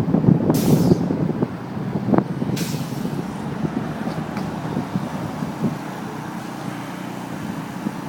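Street traffic going by: a low rumble, louder for the first second and a half and then steady and lower, with two short hisses about half a second and two and a half seconds in.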